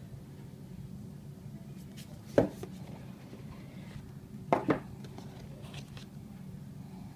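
A cardboard retail box and a small set-top box being handled and set down on a table: one sharp knock about two and a half seconds in, then a quick double knock about two seconds later, with a few faint rustles and taps, over a steady low hum.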